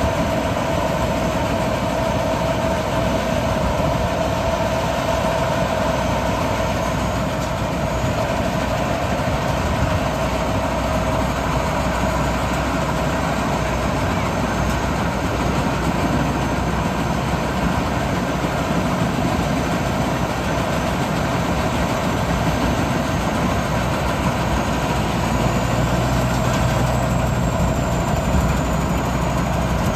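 Large engine-driven farm machine running steadily, a constant engine noise with a steady mechanical whine over it.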